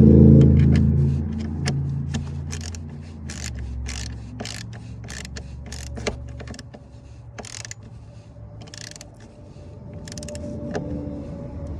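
A motor whirs down in pitch and fades over the first second or two. A low steady hum carries on beneath scattered metallic clicks, scrapes and rattles from handling tools and wiring.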